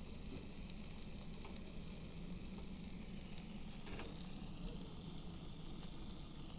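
Food sizzling on a barbecue grill: a steady hiss with scattered small crackles, the hiss growing brighter about four seconds in.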